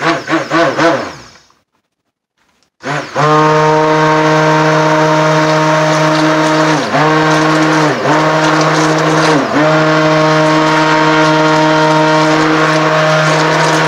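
Electric immersion stick blender mixing soap batter of oils and lye solution: a few short pulses, a pause about a second and a half in, then it runs steadily from about three seconds on. Its motor pitch dips briefly three times as the blade moves through the thickening batter.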